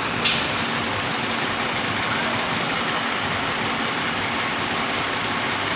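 Schwing truck-mounted concrete pump's engine running steadily, with a short sharp hiss about a quarter second in.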